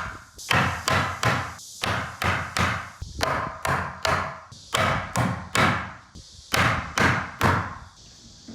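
A hand tool working wood in quick repeated strokes, about two or three a second, in runs of three or four with short pauses between.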